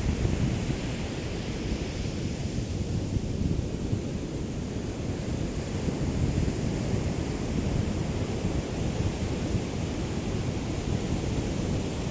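Small sea waves lapping on a beach in a steady wash, with a breeze buffeting the microphone in a low rumble.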